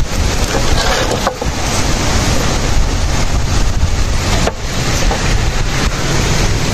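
Wind buffeting the microphone outdoors: a loud, steady rush with heavy low rumble, dipping briefly twice.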